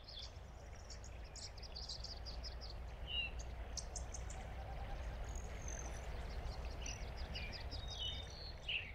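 Birds chirping, with many short calls and chirps, over a steady low rumble of outdoor ambience.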